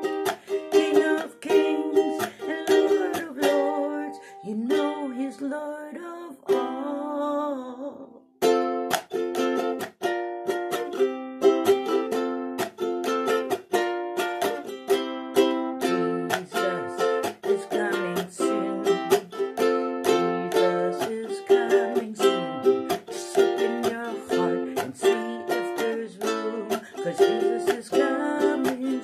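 Ukulele strummed in steady, rhythmic chords, with a brief pause about eight seconds in.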